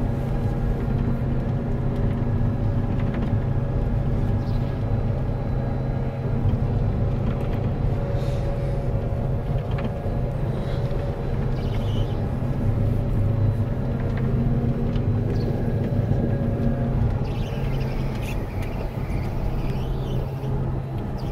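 Combine harvester engine running steadily, a constant even drone.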